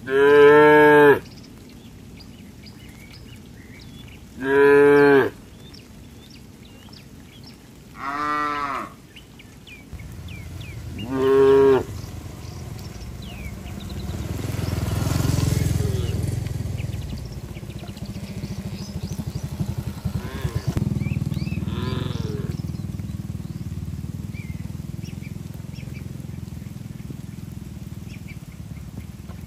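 Cows mooing: four loud, long moos a few seconds apart, each rising and falling in pitch, then a low rumbling noise with a few fainter moos about two-thirds of the way through.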